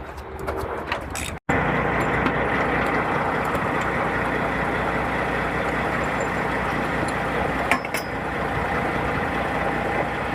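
Peterbilt truck's diesel engine idling steadily, coming in abruptly about a second and a half in, after a few faint tool clicks.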